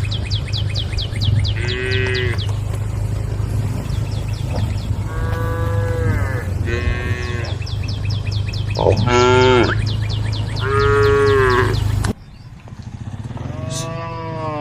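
A herd of cattle mooing: about six drawn-out moos of differing pitch, some overlapping, over a steady low hum and a fast high ticking. Near the end the background drops away suddenly and one more moo follows.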